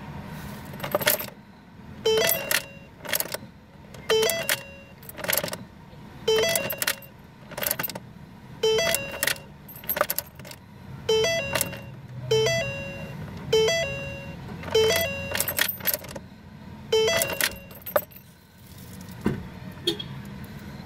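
Ignition key of a 2009 Ford Focus turned over and over, about once a second, its keychain jangling with a click at each turn. The engine never cranks: the car's no-crank starting fault.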